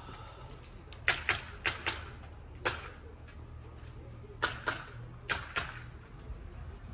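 Footsteps clicking on a hard floor, about five steps with the heel and toe of each heard as a quick pair of clicks, over a low steady rumble.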